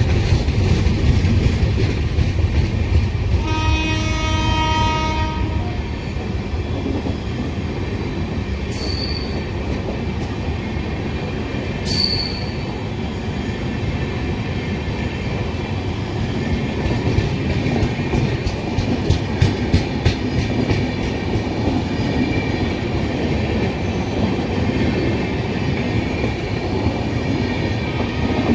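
A passenger train running, with a steady rumble and wheel clatter on the rails. The train horn sounds once for about two seconds a few seconds in. Two short high squeaks, likely from the wheels, come later.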